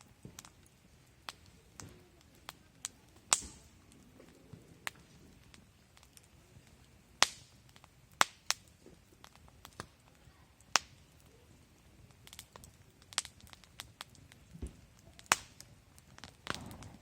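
Wood campfire crackling, with sharp snaps and pops at irregular intervals and a brief hiss near the end.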